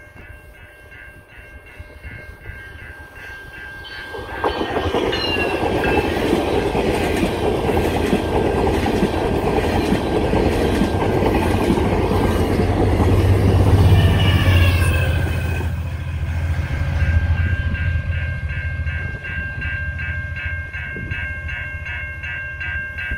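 Electronic level-crossing bell ringing in rapid, scratchy strokes, then drowned out about four seconds in as a GO Transit passenger train passes at speed, its wheels clattering over the rails. The diesel rumble of the F59PH locomotive is loudest about two-thirds of the way through. The bell comes through again as the train moves away.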